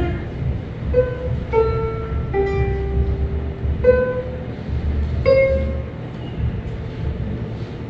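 Music: a slow melody of single held notes, one after another, with plucked-string accompaniment typical of a ukulele group.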